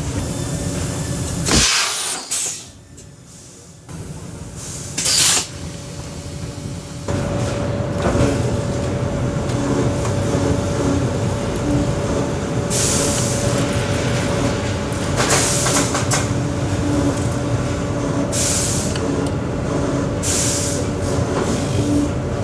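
Pneumatic shoemaking machines running with a steady hum and a faint whine, broken by short hisses of compressed air being let out, two in the first few seconds and four more in the second half.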